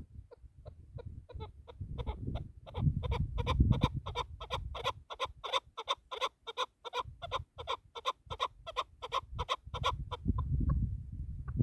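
Chukar partridge calling a long run of quick, clucking 'chuck' notes, about four a second, that build up and then thin out near the end, over a low rumble of wind or handling noise.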